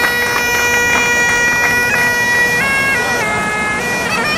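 Bagpipes playing a melody of held notes that step up and down over a steady drone.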